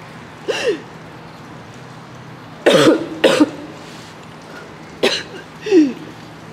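A woman coughing and choking in about five short fits, the loudest two close together about three seconds in. It is an acted fit of choking, as if poisoned.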